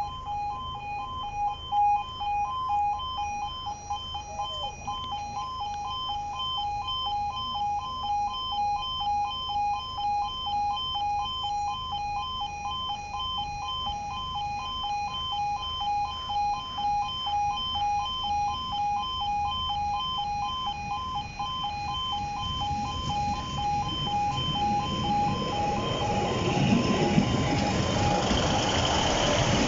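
Level crossing audible warning alarm sounding a rapid, steady on-off pulsing tone. From about three-quarters of the way through, a Class 156 Sprinter diesel multiple unit comes in under it with a rising rumble and rail noise, loudest near the end as it runs past.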